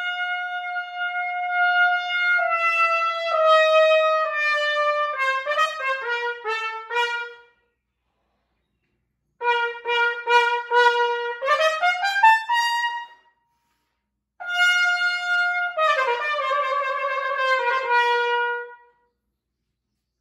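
Solo trumpet playing three short phrases with silent pauses between them. The first and last open on a long held note and step downward, and the middle one sweeps quickly upward in pitch.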